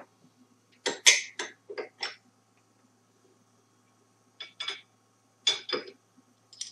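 Metal wrenches clinking on the collet nut and shaft of a 2.2 kW CNC router spindle during a manual bit change: a cluster of sharp clinks about a second in and another around five seconds in.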